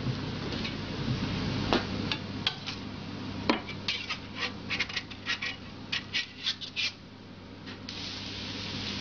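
Long metal crêpe spatula scraping and clicking against a hot crêpe griddle as it loosens the edge of the crêpe and slides underneath it: a few scattered clicks, then a quick run of about three or four a second that stops near the end, over a steady low hum.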